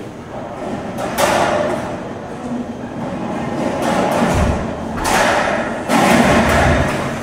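Work on metal ducting: a few loud thuds and scraping noises, with a deep rumble in the second half.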